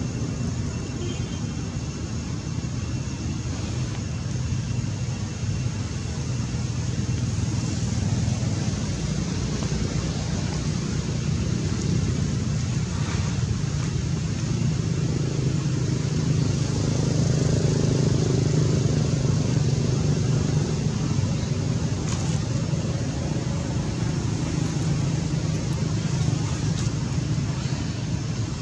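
Steady low engine-like rumble, such as motor traffic, swelling for several seconds in the middle.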